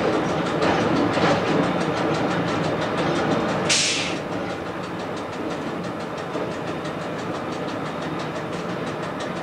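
South Australian Railways Bluebird diesel railcar running along the track, heard from on board: a steady rumble of wheels on rails and engine. A short sharp hiss comes about four seconds in, after which the running sound is a little quieter.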